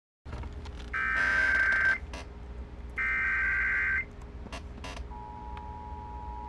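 Emergency Alert System SAME header: two one-second bursts of warbling digital data tone. From about five seconds in, the steady two-tone EAS attention signal follows, all over a low steady hum.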